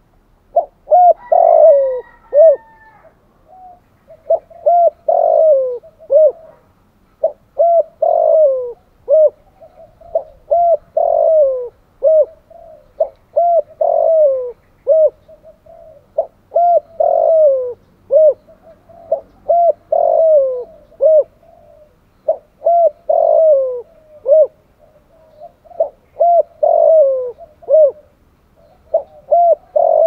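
Spotted dove cooing in the fast, pressing 'thúc gù' style: a phrase of several short coos repeated about every three seconds. A thin whistle sounds briefly about a second in.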